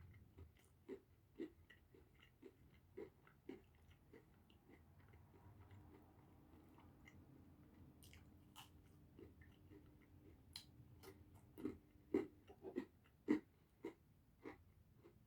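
Close-up mouth sounds of a person eating pizza: soft, irregular chewing smacks and clicks, with a few louder ones near the end.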